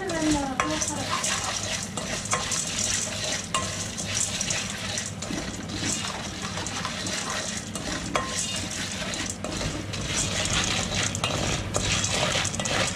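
Popcorn kernels heating in hot oil in a covered pot: steady sizzling, scattered sharp ticks and light clinks of the metal pot.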